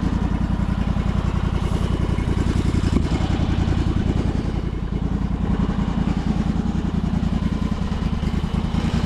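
Sawmill engine running steadily at a constant speed, with no cutting going on.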